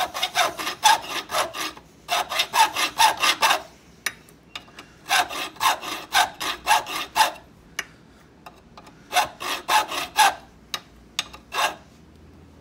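Hand file cutting a ward into a bit key blank clamped in a vise: fast rasping strokes, about five a second, bearing down on each push stroke and lifting on the return. The strokes come in runs of one to two seconds with short pauses between.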